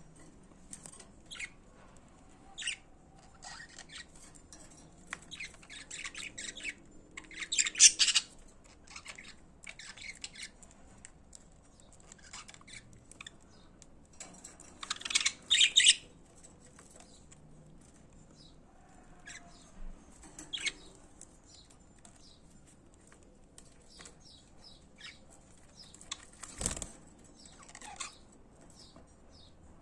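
Budgerigars chirping and chattering in short, scattered calls, with two louder bursts of rapid chatter, about a third and halfway through. A single sharp knock comes near the end.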